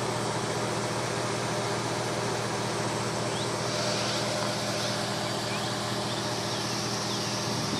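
Steady hum of an idling vehicle engine with a fan running. A few faint, short chirps come through in the middle.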